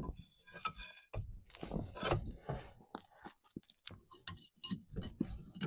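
Metal clinking, knocking and scraping as a spacer is levered into place with a pry bar: an irregular run of sharp clicks and knocks, some with a short metallic ring.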